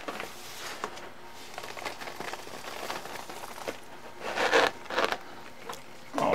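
Foil mylar bag crinkling as freeze-dried food is tipped from a stainless steel tray into it: light rustles and small clicks, growing louder about four to five seconds in.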